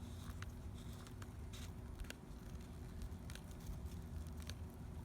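Faint, irregular clicks and scrapes from a brass sprinkler head being screwed by hand onto its pipe fitting, over a low steady rumble.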